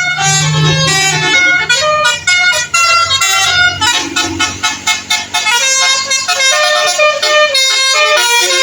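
Telolet Basuri multi-tone bus horn playing a fast melody of short stepped notes, with a quick staccato run in the middle.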